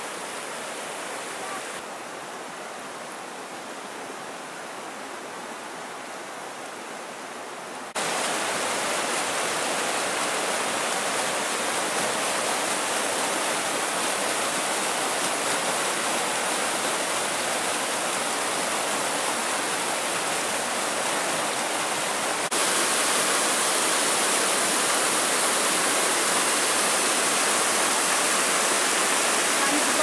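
Mountain stream rushing over rocks and small cascades: a steady wash of running water that gets suddenly louder about a quarter of the way in and again about three-quarters of the way in.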